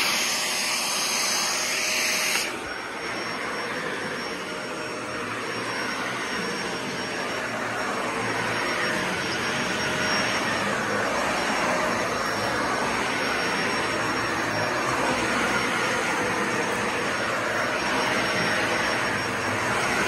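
Dyson Ball Animal 2 upright vacuum cleaner running as it is pushed over a rug. The first two seconds or so are harsher and hissier, then it settles into a steady motor noise with a faint high whine.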